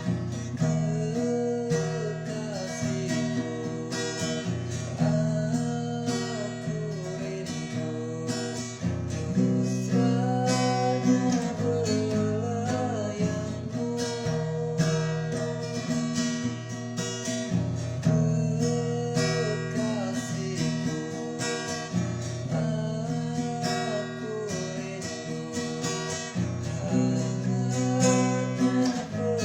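Acoustic guitar music: chords plucked and strummed, with a melody line sliding up and down above them.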